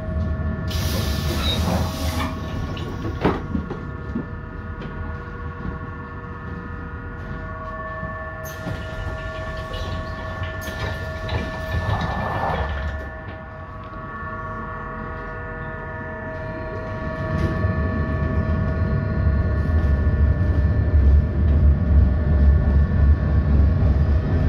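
Interior running sound of an ASEA M31 thyristor-controlled tram: low wheel-and-motor rumble under a steady whine of several tones, with a few short hisses. The rumble drops off around the middle and grows louder again over the last several seconds as the tram picks up speed.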